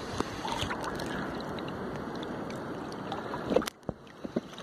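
Sea water sloshing and lapping around a wader's body and a small beach seine net being hauled through waist-deep water, with small scattered splashes and one sharper knock about three and a half seconds in.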